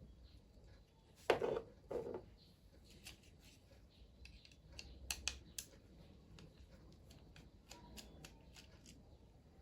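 Small hand-tool and handling noises from work inside an opened electronic keyboard: scattered light clicks, with two short scrapes about a second in and a quick run of clicks about five seconds in.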